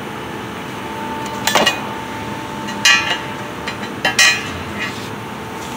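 Three sharp metallic clinks of laser-cut steel pieces knocking against the 12 mm steel plate as they are handled, about a second and a half apart. Under them runs a steady machine hum with a faint steady tone.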